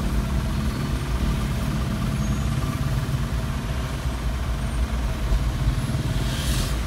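Suzuki vehicle's engine idling steadily, heard from inside the cabin, with a short hiss near the end.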